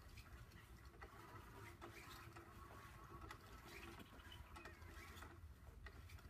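Faint whirring and light ticking of a motorized cat toy, its motor turning under a round fabric cover, with a low hum beneath.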